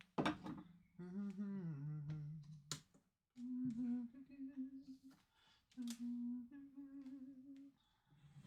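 A person humming a tune in three phrases of held, sliding notes, with a few sharp clicks or taps in between, the loudest just after the start.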